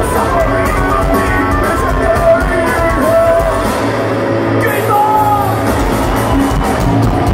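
Live metal band playing loud through the PA, heard from within the crowd: drums and electric guitars, then about four seconds in the low drumming drops away and long held notes ring on.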